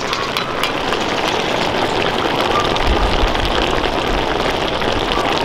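Innards stew simmering in a large metal wok: a steady sizzle and bubbling with many small pops. A brief low rumble comes about three seconds in.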